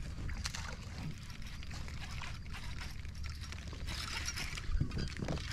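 Small water sounds at a kayak: trickling and light lapping against the hull, with a few faint knocks.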